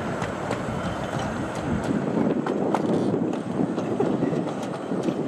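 Coaches of a 15-inch-gauge miniature railway train rolling past, with a steady rumble from the wheels and sharp clicks as they cross the rail joints, while the last coach passes and moves away.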